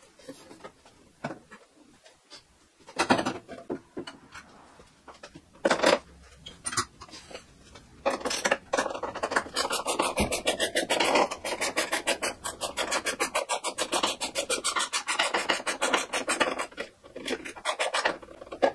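Ratchet wrench working the fasteners that hold the Ultima RS kit car's body centre section: a few separate knocks and clicks, then about eight seconds in a long run of quick, even ratcheting clicks.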